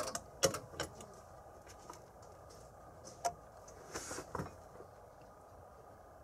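A few scattered light clicks and knocks, as of tools or parts being handled during work on a machine. There are single knocks in the first second, one a little past three seconds and a short cluster about four seconds in.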